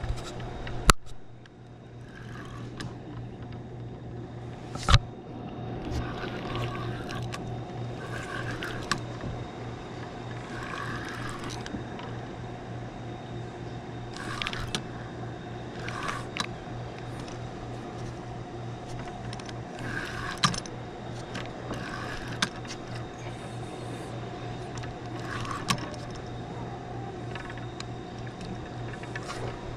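Spinning rod and reel worked from a kayak, cast and reeled in: sharp clicks and knocks every few seconds, the loudest about a second in and about five seconds in, over a steady low hum.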